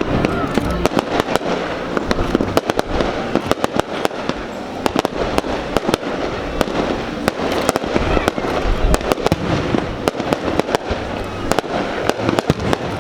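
Aerial fireworks show bursting in rapid, continuous succession: many sharp bangs with crackling between them.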